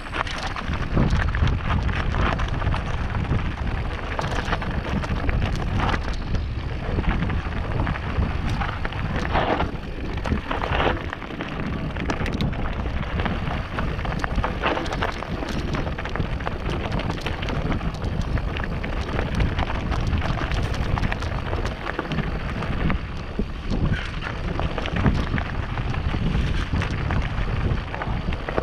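Mountain bike rolling down a rocky singletrack: a steady rush of wind on the microphone, with the crackle and knocks of the tyres running over loose stones and the bike rattling on the rough ground.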